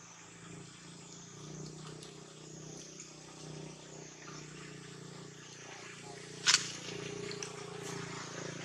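A steady low motor hum under outdoor background hiss, with one short sharp click about six and a half seconds in.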